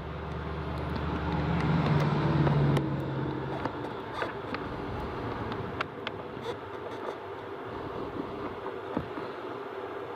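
A low hum swells and fades out over the first four seconds above steady background noise, followed by a few light clicks as a plastic blower motor resistor and its screw are handled into place.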